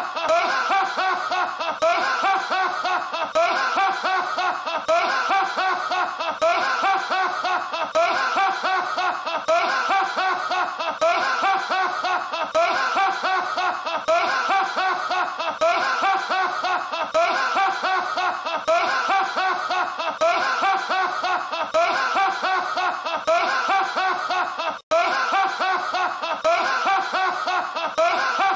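A man's deep, loud laughter, a single laugh clip looped over and over, in bursts about once a second, with a momentary gap about 25 seconds in where the loop restarts.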